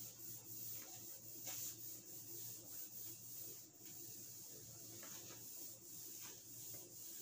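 A cloth wiping marker writing off a whiteboard, with faint, repeated rubbing strokes.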